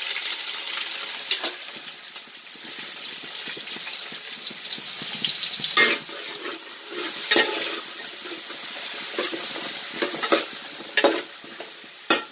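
Chopped shallots sizzling steadily in hot sesame oil in a metal pot. A ladle scrapes and clanks against the pot several times as they are stirred.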